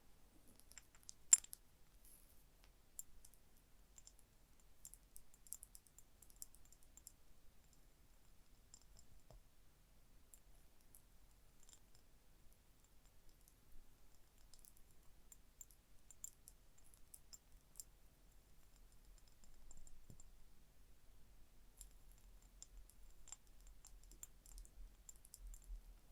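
Gentle fingernail tapping and scratching on small objects, heard as faint clusters of light, crisp clicks and scrapes. There is one sharper click about a second in.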